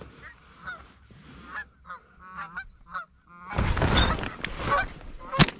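Flock of Canada geese honking as they come in to decoys, the calls repeated and overlapping. From about three and a half seconds in a loud rush of noise covers the calls, and near the end comes one sharp 20-gauge shotgun shot.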